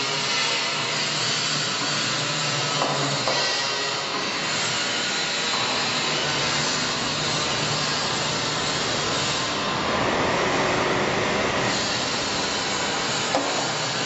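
Continuous loud workshop machinery noise, a steady grinding rush with no pause, swelling slightly about ten seconds in, with a couple of short clicks.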